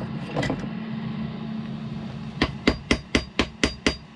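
Hammer strikes knocking at a small protruding piece: a few light taps, then seven quick sharp blows about four a second in the second half, each with a faint metallic ring.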